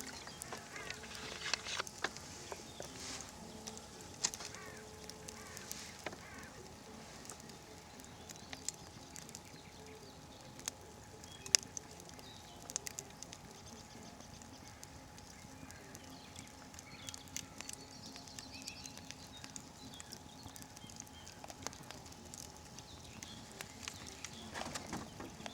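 Campfire burning, with faint hissing and irregular crackles and pops from the burning wood, a few sharp and loud.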